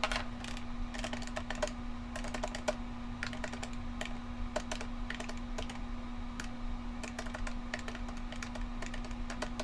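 Keys tapped rapidly and irregularly as figures are totaled, played fast-forward. A steady low hum sounds higher in pitch from the speed-up.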